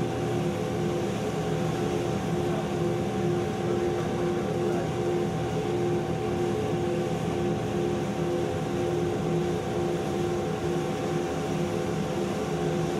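Coffee drum roaster running: its motor and turning drum give a steady hum with a few constant tones, one of them faintly pulsing, while a batch of beans roasts.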